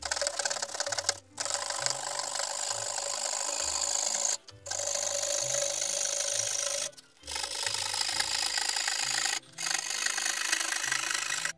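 Hand saw cutting into a wooden board, a continuous rasping of the teeth through the wood in four long stretches broken by brief pauses.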